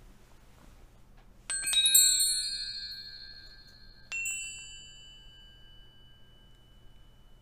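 Metal chimes struck: a quick cluster of bright, high ringing strikes about one and a half seconds in, then a single strike of another pitch about four seconds in, each ringing on and slowly fading.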